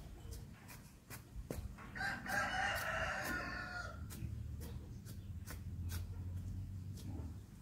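A rooster crows once, a call of about two seconds starting about two seconds in, over light, regular ticking a few times a second.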